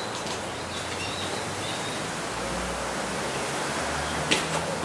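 Steady outdoor background noise, wind on the microphone over a low steady hum, with a short sharp tick about four seconds in.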